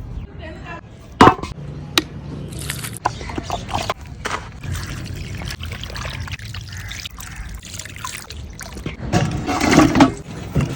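Water pouring and splashing, with scattered sharp clicks and knocks and a louder rush about nine seconds in.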